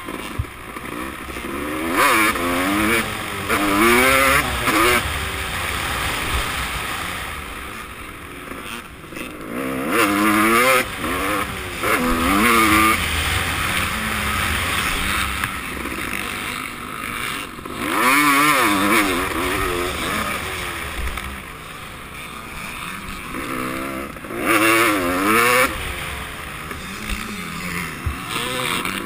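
Motocross bike engine, heard close from the rider's helmet, revving up and falling back again and again as the rider accelerates, shifts and rolls off around the track. It has several loud surges: about two, four, ten to twelve, eighteen and twenty-five seconds in.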